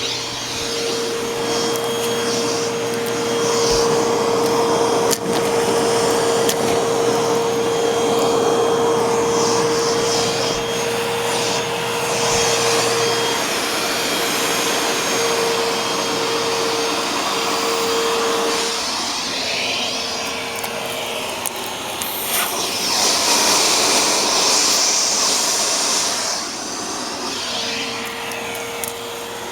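Eureka Boss Smartvac 4870 upright vacuum cleaner running, a steady motor whine over the rush of its airflow. Past the middle the whine wavers and drops away for several seconds, coming back near the end.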